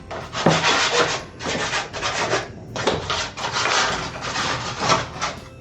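Sandpaper rubbed by hand over the wooden parts of a toy helicopter kit, in quick, uneven back-and-forth strokes.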